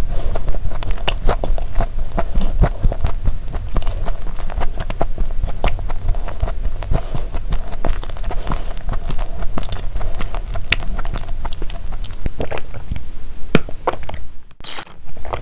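Close-miked chewing of a mouthful of cream-filled sandwich cookie, a dense run of small crunches and wet mouth clicks. Near the end, a few sips from a milk tea pouch.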